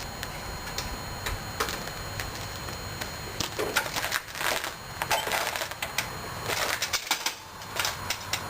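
Irregular clicking and clattering, as of parts or tools being handled, starting about three and a half seconds in, over a steady low hum.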